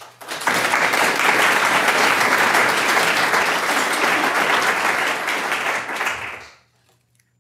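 Audience applauding, a dense round of clapping that dies away near the end.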